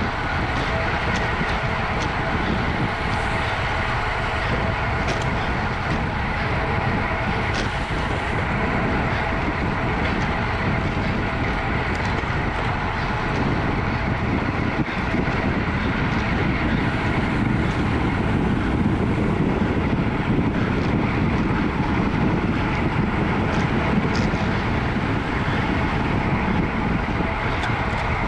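Wind rushing steadily over the microphone of a camera on a road bicycle being raced, with tyre and bike noise underneath.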